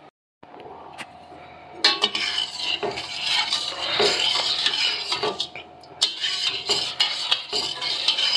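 Metal spoon stirring sugar into water in a stainless steel pot: a gritty scraping of undissolved sugar grains, with repeated clinks of the spoon against the pot, as the sugar dissolves into syrup. The stirring starts about two seconds in, eases briefly a little past the middle, then picks up again.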